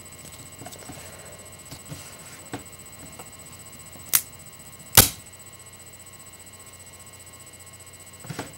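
A thin, soft wooden fingerboard deck being bent by hand until it snaps: a few faint clicks, then two sharp cracks under a second apart, the second the loudest, and one more small click near the end. The snap shows how weak the deck's wood is, breaking under little effort.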